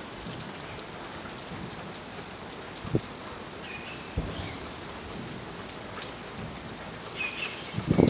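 Steady rain falling, an even hiss, with two short dull thumps about three and four seconds in and a few faint high chirps.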